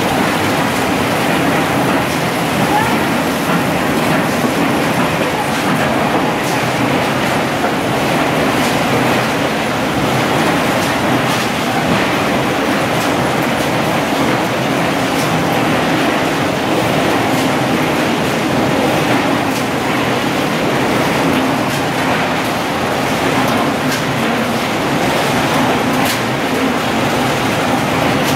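18-litre square tinplate can body line running: steady, loud machine clatter and hum from the can-forming machines and conveyors, with a few faint sharp clicks.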